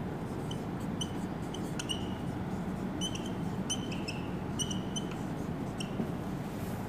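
A marker squeaking against a whiteboard as words are written: a dozen or so short, high squeaks at irregular intervals, over a steady room hiss.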